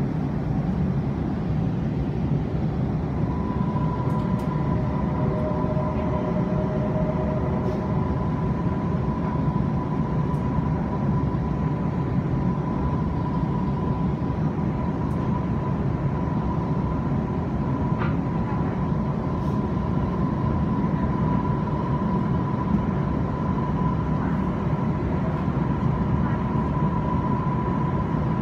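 Beijing Line S1 medium-low-speed maglev train running, heard from inside the carriage: a steady low rumble with a steady high whine that comes up about three seconds in.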